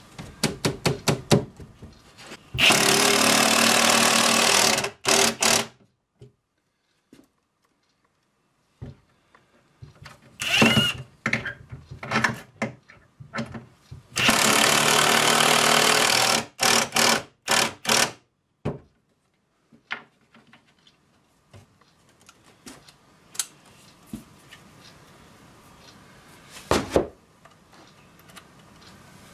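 Cordless drill running in two steady bursts of about three seconds each, driving screws through the drawer box into a pine drawer front, with clicks and knocks of handling between.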